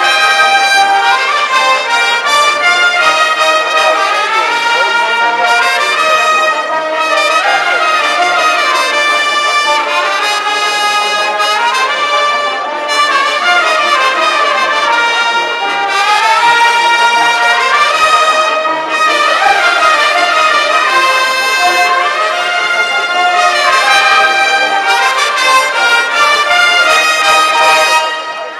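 Military brass band of trumpets and trombones playing a tune, its phrases running up and down in pitch; the playing breaks off right at the end.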